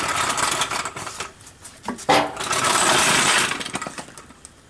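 Rattling and scraping of a car frame being rolled into place by hand, in two long stretches with a short squeak between them.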